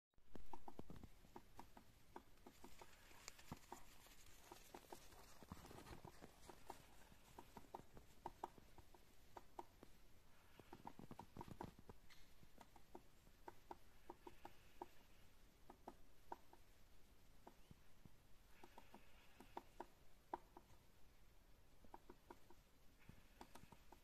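Faint crunching of footsteps in snow: irregular soft crackles, a few a second, over a quiet background.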